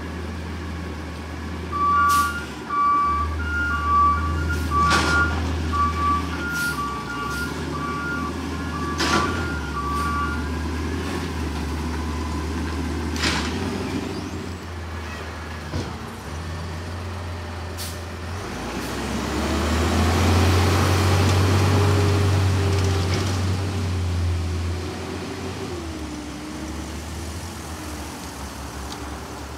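Peterbilt 320 front-loader garbage truck backing up: its reversing alarm beeps steadily for about ten seconds over the low engine hum, with several sharp bangs. Later the engine revs up for several seconds, the loudest part, then eases off.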